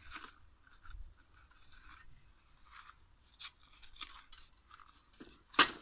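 Paper tape layer being peeled and torn off a power cable's core by hand: scattered faint crinkling and tearing, with one sharp snap near the end.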